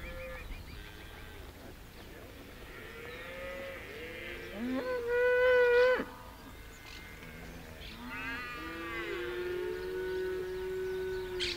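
A herd of cattle mooing, several calls overlapping. The loudest is a long moo from about four and a half seconds in that stops abruptly at six, and another long, lower moo runs from about eight seconds in until near the end.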